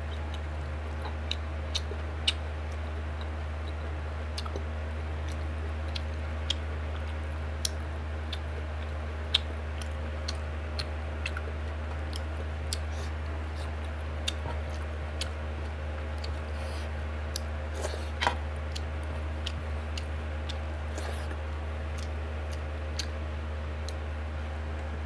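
Close-up mouth sounds of a person eating rice and pork curry by hand: irregular chewing, wet smacks and sharp clicks, over a steady low hum.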